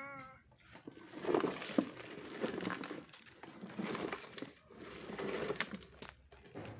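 Hard plastic wheels of a child's ride-on toy motorcycle rolling and scraping over gravelly dirt, an uneven crunching that comes and goes as the boy pushes it along with his feet.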